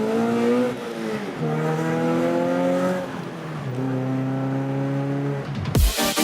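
Toyota FRS's flat-four engine, running a fresh tune with a catless header, catless mid pipe and overpipe, accelerating in three runs; the pitch climbs, then drops between runs. Electronic dance music cuts in near the end.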